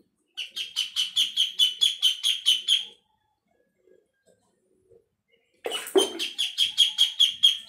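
A duckling peeping loudly and rapidly, about five high peeps a second, in two bouts separated by a pause of about two and a half seconds. These are the distress calls of a duckling trapped in a toilet bowl. A brief low noise comes at the start of the second bout.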